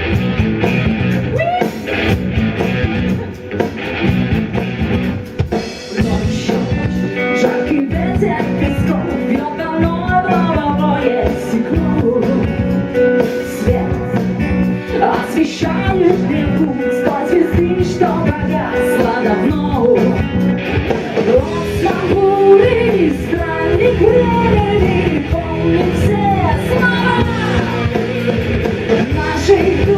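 Background music: a song with a singing voice over drums and guitar.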